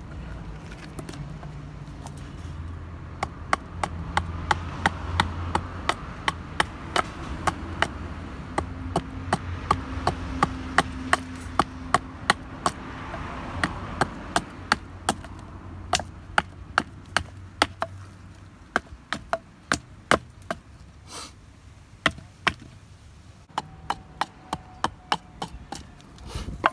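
Hatchet chopping wood: a steady run of sharp chops, about two a second, as a curved piece of wood is hewed to shape on a chopping block.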